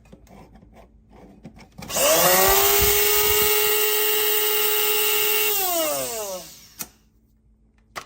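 Bodum Bistro electric blade coffee grinder's motor spins up quickly, runs steadily for a few seconds, then winds down with falling pitch, followed by a sharp click or two. It runs on being plugged in, because coffee stuck in the lid safety switch holds the switch on.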